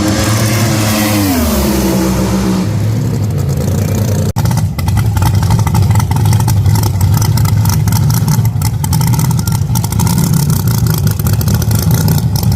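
Drag-racing engines. In the first two seconds one engine's pitch falls as it slows. After an abrupt cut a little over four seconds in, a loud, steady low engine rumble with dense crackling runs to the end.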